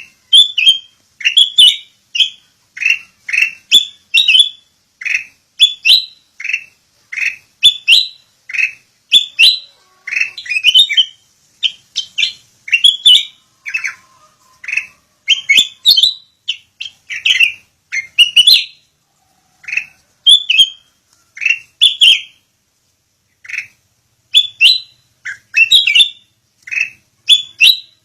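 Songbird giving short, loud, high chirps, singly and in quick runs of two or three, about two a second, with a few brief pauses.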